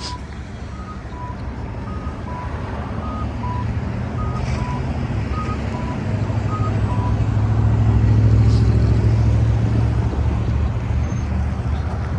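Street traffic with a heavy vehicle passing, its low rumble building to its loudest about two-thirds of the way through. For the first half, an accessible pedestrian crossing signal beeps, alternating between two pitches about twice a second, then stops.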